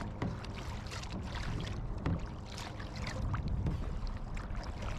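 Kayak paddles dipping and splashing in the water in irregular strokes, with wind buffeting the microphone.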